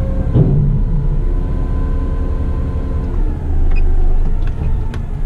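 Eight-wheeler twin-steer truck's diesel engine and drivetrain running steadily under way, heard from inside the cab: a low drone with a steady whine over it. About three seconds in the whine stops and the low drone grows a little louder, with a few light clicks near the end.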